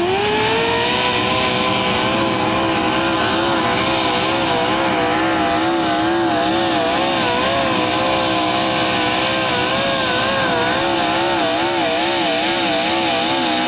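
Mini modified pulling tractor's engine at full throttle under load. The pitch climbs steeply at the launch and then holds high and steady. Through the second half it wavers up and down about twice a second.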